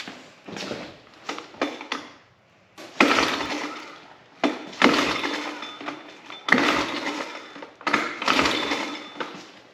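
Small clicks and rattles, then the 1986 Suzuki LT185's single-cylinder engine is pulled over four times, each sharp at the start and fading off. This is cranking for a compression test on an engine with almost no compression, about 4 psi.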